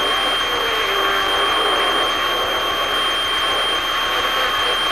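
Steady cabin and engine noise of a light airplane in flight, with a thin steady high whine.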